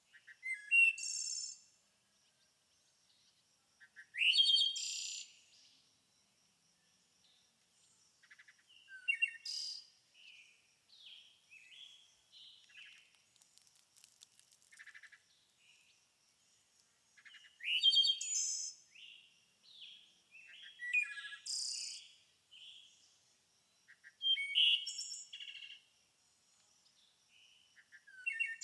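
Birdsong: a songbird sings loud, high, sliding phrases every few seconds, with softer chirps in between and a faint steady high tone underneath.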